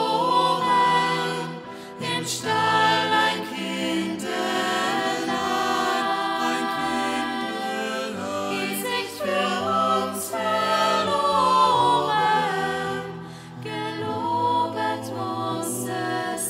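Mixed choir singing a cappella in several harmonised voice parts, a new arrangement of an Advent/Christmas carol.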